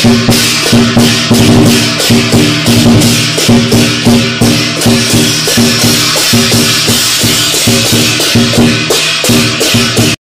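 Chinese lion dance percussion, drum and clashing cymbals, beating a fast steady rhythm of about three strikes a second. It cuts off abruptly at the end.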